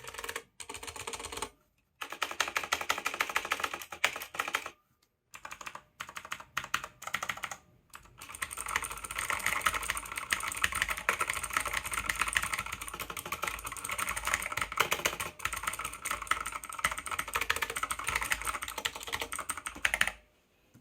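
Typing on a Cosmic Byte CB-GK-03 Black Eye mechanical keyboard with clicky Outemu Blue switches. First come short runs of rapid key clicks with brief pauses between them, then from about eight seconds in, fast continuous typing.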